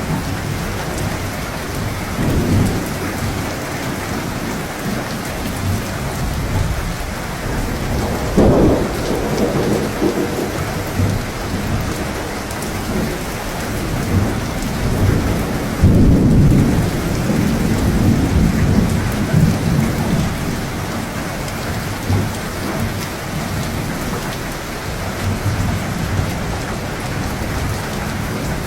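Steady heavy rain falling, with several rolls of low thunder rumbling through it; one breaks in sharply about eight seconds in and the loudest comes about halfway through.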